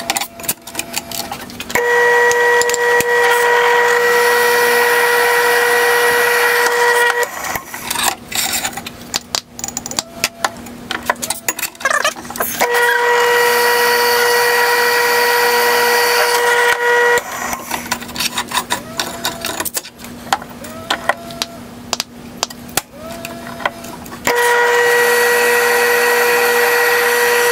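Drill press boring holes, three separate drilling passes, each a steady high-pitched squeal of the bit cutting, with clicks and knocks of the workpiece being handled between passes.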